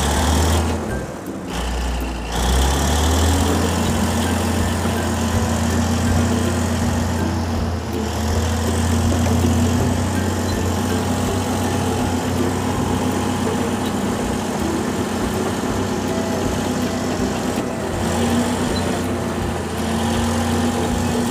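Steady low engine drone like a backhoe loader's diesel idling, with a brief dip about a second in before it settles back to a constant hum.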